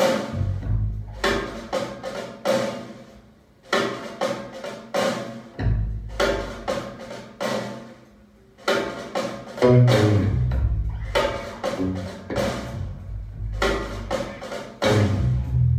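Recorded music with drums, percussion and a deep bass line, played back through a hi-fi chain of an ECDesigns Power DAC R, a Re084 directly heated triode preamplifier and an F2a single-ended tube amplifier driving open-baffle full-range loudspeakers.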